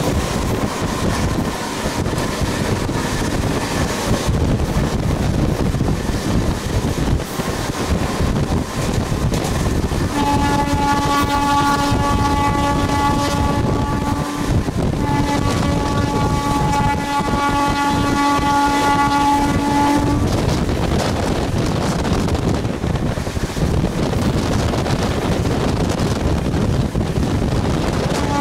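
Running rumble of a moving train heard from on board, with wind on the microphone. About ten seconds in, a train horn sounds two long steady blasts, back to back, of about four and five seconds.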